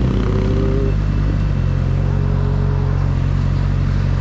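Honda Hornet motorcycle engine idling steadily at a standstill, settling to an even idle about a second and a half in.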